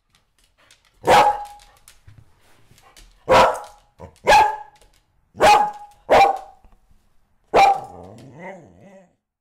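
A dog barking six times over about seven seconds, at uneven spacing, with a fainter wavering sound after the last bark.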